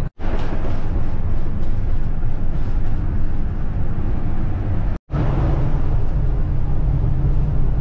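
Steady road and engine rumble inside a moving RV's cab at freeway speed. The sound cuts out briefly twice, just after the start and about five seconds in.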